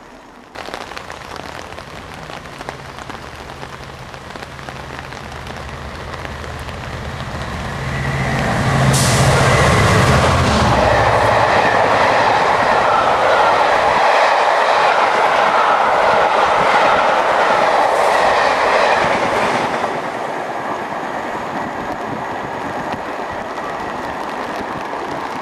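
Diesel-hauled passenger train passing at speed. The locomotive's engine builds and is loudest as it goes by about ten seconds in. About ten seconds of wheel and rushing noise from the coaches follows, then the sound drops off as the train recedes.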